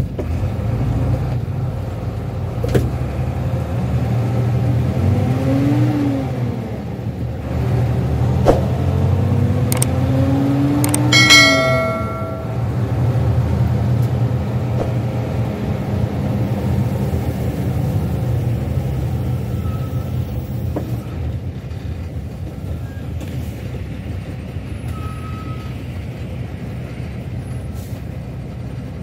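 Engine of the vehicle being driven, heard from inside the cab as a steady low hum; its pitch climbs and drops back twice, around 6 and 12 seconds in. A short ringing tone sounds about 11 seconds in.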